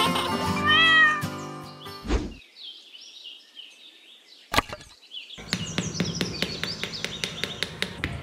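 Background music with a cartoon cat meow near the start. From about five seconds in, a small hammer taps a thin wooden stake into the ground, a steady run of light taps, about three or four a second.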